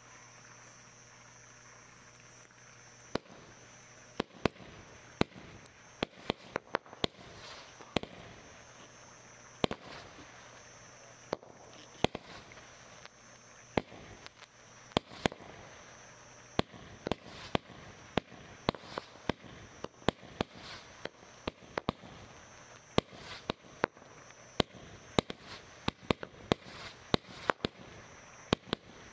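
Low-noise girândola firework cake of 60 tubes of 20 mm firing, a rapid, uneven series of sharp pops starting about three seconds in and carrying on throughout.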